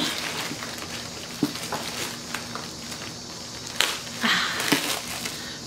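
Plastic packaging and tissue paper crinkling and rustling as a sealed bag is pulled open by hand, with scattered small clicks and a louder burst of crinkling about four seconds in.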